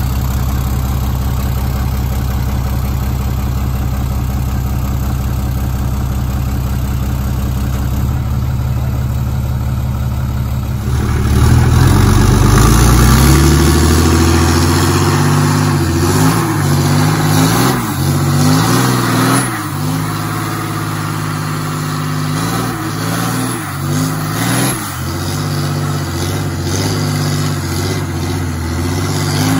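A Ram 2500's 6.7-litre Cummins turbo-diesel straight-six idling steadily, then revved hard about a third of the way in. It is held at high revs with repeated rises and dips in pitch as the rear tyres spin in a smoky burnout.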